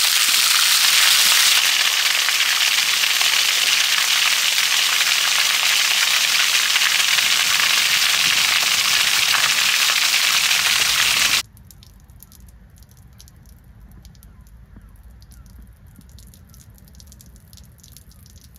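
Water gushing out of a traction engine boiler's drain and splashing onto the ground as the boiler is drained down: a loud, steady hiss that cuts off suddenly about eleven seconds in. After it, faint drips and a thin trickle of water falling into a puddle.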